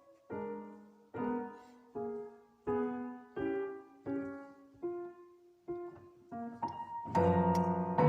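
Piano playing slow, separate chords, one about every three-quarters of a second, each left to ring and fade; about seven seconds in the playing turns louder and denser.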